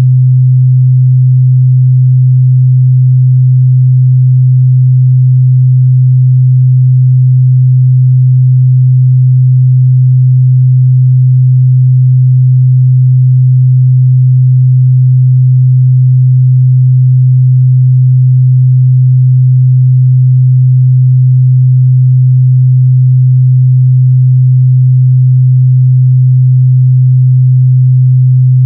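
A continuous 128 Hz sine-wave test tone, a steady low hum held at one pitch and level.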